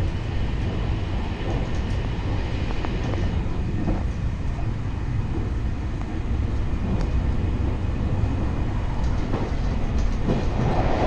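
Train running on rails: a steady low rumble with scattered clicks, growing a little louder near the end.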